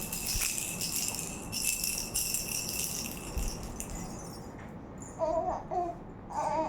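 A baby's toy rattle being shaken, jingling steadily, then dying away about four seconds in. Two short pitched sounds follow near the end.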